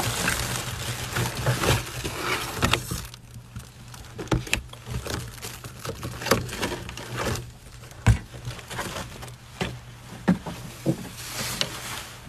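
Crinkling and rustling of a foil-lined insulated delivery bag being opened and rummaged, with scattered clicks and knocks of the food containers being lifted out, one sharper knock about eight seconds in.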